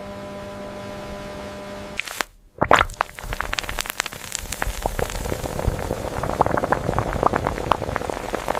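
A steady machine hum with an even pitch stops about two seconds in. After a short gap, carbonated soda fizzes: dense crackling and popping of bubbles that grows busier toward the end.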